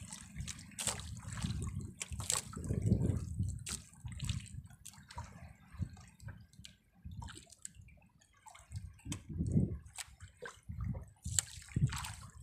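Sea water sloshing and lapping against the side of a small boat, swelling and easing unevenly, with scattered small splashes and drips.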